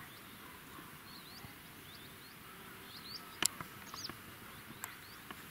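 Small birds chirping in short, rising and falling notes over a faint steady hiss of outdoor air. A few sharp clicks come a little past halfway.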